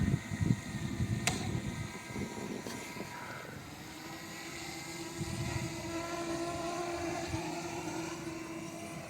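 Wind buffeting the microphone in gusts, with a single sharp click about a second in; from about three and a half seconds a steady motor hum joins it.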